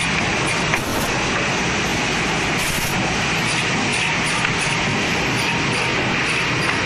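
Woodworking machinery running with a steady, even mechanical noise, with a few faint clicks.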